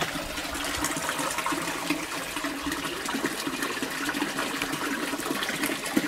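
Water splashing and trickling steadily into an aquaponics fish tank.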